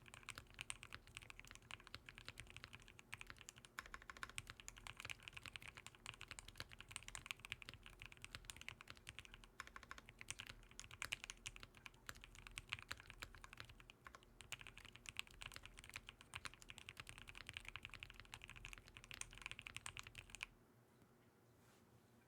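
Fast, continuous typing on a custom-built mechanical keyboard, a rapid run of key clacks that stops abruptly near the end.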